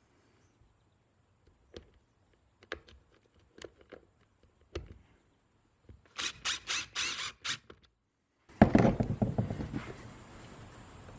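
Parts and tools being handled during a hand repair: scattered light clicks and knocks, a quick run of about six scraping strokes, then a sudden loud knock about two thirds through, followed by rustling that eases off.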